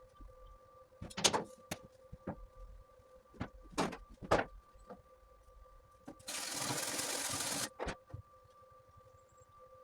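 A short MIG welding burst on aluminium, a steady crackling hiss of about a second and a half just after the middle, among scattered sharp clicks and knocks. A steady hum runs underneath.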